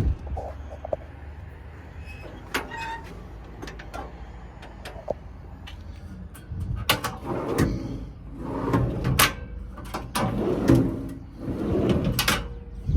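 Service-body toolbox compartment doors and latches being handled: a sharp click at the start and a few light clicks, then a run of scraping, rattling clunks over the last several seconds, over a low steady hum.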